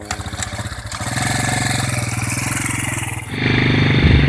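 Small Yamaha underbone motorcycle engine being kick-started, catching within the first second and settling into a steady idle on an old, hard-starting bike. About three seconds in, the engine sound becomes louder and deeper.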